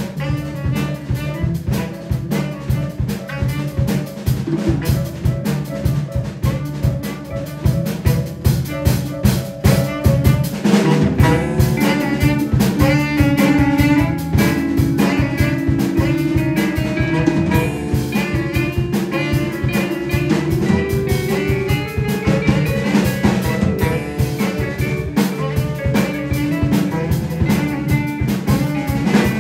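Live jazz band playing: saxophone, keyboard, electric bass and drum kit, with the drums keeping a busy steady rhythm. From about ten seconds in a long held note sounds over the band, stepping up in pitch about ten seconds later.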